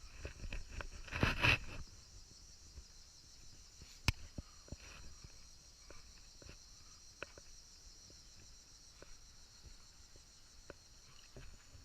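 Steady high-pitched chorus of evening insects, with scattered light clicks and knocks over it and a brief louder rustle about a second in.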